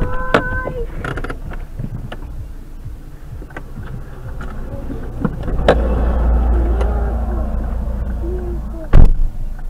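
Sounds from inside a stopped car just after a road collision. A short steady tone is held at the start, followed by scattered knocks, a low rumble from about five seconds in, and one loud sharp bang near the end.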